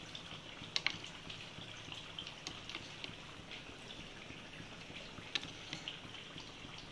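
Spoon stirring and lifting thick cream in a glass bowl: faint wet, dripping sounds with light ticks. A sharper click of the spoon against the glass comes just under a second in and again a little past five seconds.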